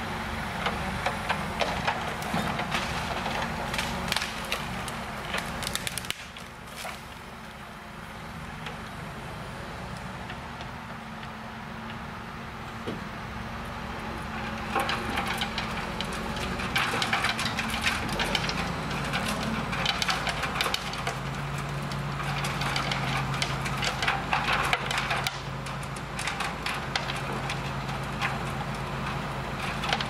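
Eschlböck Biber 84 wood chipper, driven by a John Deere 8360R tractor, chipping tree trunks fed in by its crane. A steady engine and rotor drone runs under dense crackling and splintering of wood, which thins out about six seconds in and picks up hard again about halfway through.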